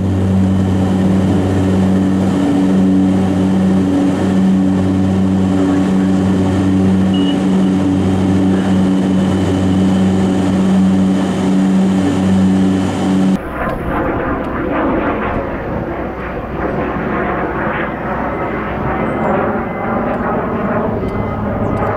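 Twin-engine propeller airplane during its takeoff roll, heard from on board: a loud, steady engine and propeller drone with a strong low hum. About thirteen seconds in it cuts abruptly to the airplane heard from outside, a rougher, noisier engine sound as it climbs away.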